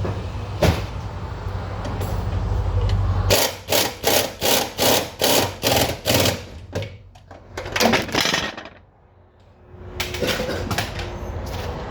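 A ratchet wrench tightening a transmission bolt on a 2017 Chevy Suburban, in a quick run of about ten even strokes at roughly three a second. A steady low hum underneath stops about three seconds in, just before the strokes begin.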